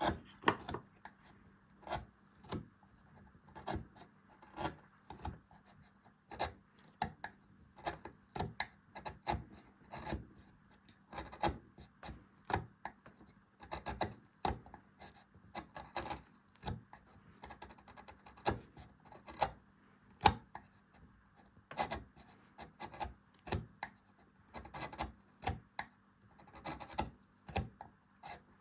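Hand carving tools cutting and scraping into beech wood in short, irregular strokes, about one or two a second.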